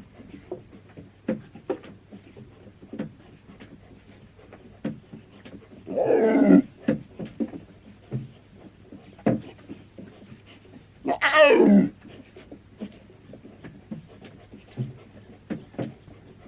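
Lion (Panthera leo) vocalising: two loud roaring calls, one about six seconds in and one about eleven seconds in, the second falling in pitch. Short grunts and breaths fall between them.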